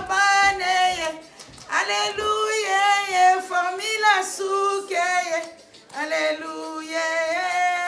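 A high voice singing a melody in long held notes, in four phrases separated by short breaths.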